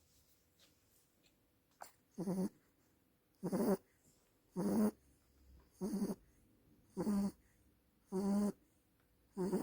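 Dog snoring: after a pause of about two seconds, short snores come at a steady pace of about one a second, seven of them, each lasting about half a second.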